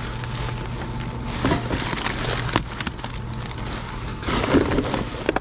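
Scattered knocks, crackles and clatter of discarded curbside junk being pulled at and handled, over a steady low hum. The clatter is louder near the end.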